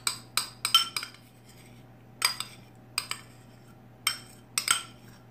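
A metal utensil scraping and clinking against a bowl while scooping out softened butter, in about a dozen irregular sharp clicks and short scrapes.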